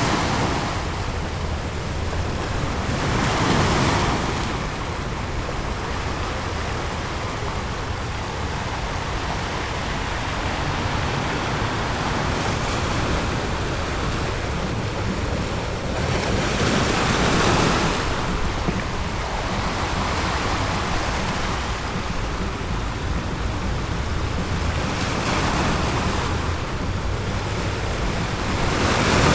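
Ocean surf breaking on a beach: a steady wash of water noise that swells four times as waves come in, at uneven gaps of several seconds.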